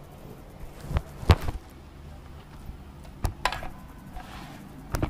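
Handling noise on an action camera: a few sharp knocks and rubs, the loudest about a second and a quarter in, over a low steady hum.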